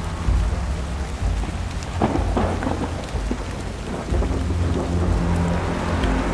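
Heavy rain falling with a low, rolling rumble of thunder. A sharper crackle of thunder comes about two seconds in.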